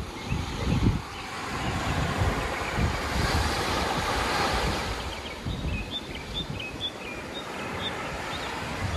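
Wind buffeting the microphone in uneven gusts, over a steady wash of surf on a sandy beach.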